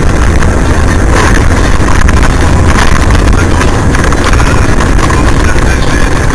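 Steady, loud running noise of a car on the road: engine hum and rumble with wind and road noise, and no distinct impacts.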